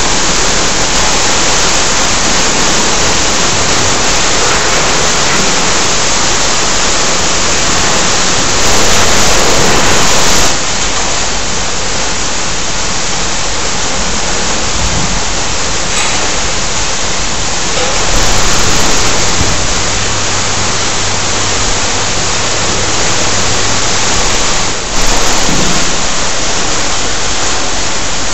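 Many sparklers burning together: a loud, steady fizzing hiss. It jumps abruptly louder and drops back three times.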